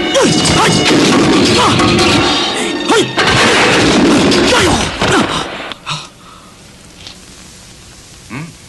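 Loud film soundtrack: music with booming crashes and several falling swoops, which stops sharply about six seconds in, leaving a low hiss and a few faint knocks.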